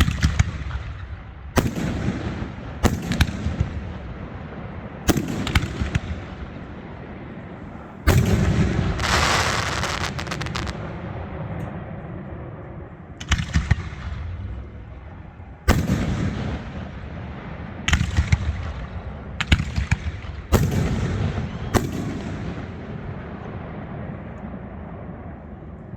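New Year fireworks going off: about a dozen sharp bangs at irregular intervals, each echoing away. About eight seconds in, one big bang is followed by two seconds of dense crackling.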